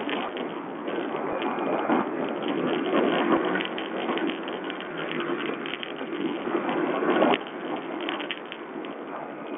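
Sherco 125 4T enduro motorcycle being ridden over a dirt trail: its engine running under a constant clatter and rattle with many sharp clicks, in low-quality sound from a watch camera. The level drops suddenly about seven and a half seconds in.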